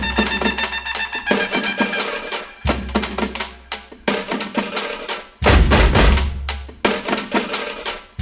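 Music with a driving drum beat; a heavy bass comes in hard about five and a half seconds in.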